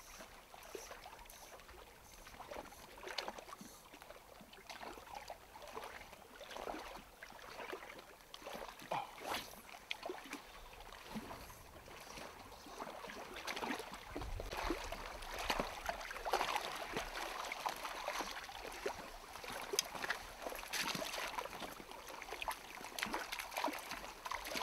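Small ripples lapping and splashing against granite boulders at the water's edge, growing louder about halfway through, with a small brown trout splashing at the surface as it is drawn to the landing net near the end.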